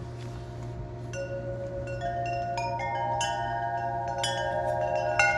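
Metal wind chimes ringing in gusty wind. Sharp strikes set off long, overlapping ringing tones that gather from about a second in, with the loudest strike near the end.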